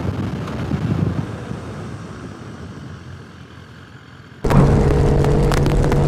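Motorcycle wind and road rumble fading away as the bike slows. About four and a half seconds in it cuts sharply to a loud motorcycle engine running at a steady high cruising speed, with wind rush.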